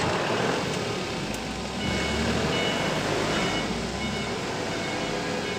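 Volvo L60F wheel loader's diesel engine running and manoeuvring at a distance, with a low rumble that swells for a couple of seconds in the middle. Its backup alarm beeps faintly as it reverses.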